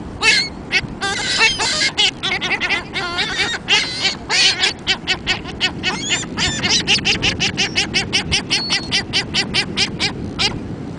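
A flock of birds chirping: many short, high calls in quick, overlapping succession.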